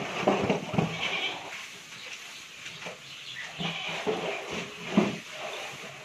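A farm animal bleating, in several irregular calls, the loudest about five seconds in.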